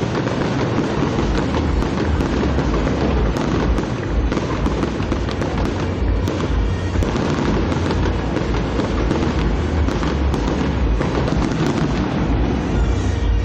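Fireworks display in a dense, continuous barrage: many sharp cracks and crackles over a constant deep rumble of shell bursts, with no pause.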